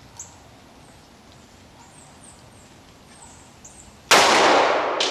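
A single .357 SIG pistol shot from a Glock 32 about four seconds in: one sudden, very loud crack that rings out and dies away over about a second, with a few fainter sharp echoes after it.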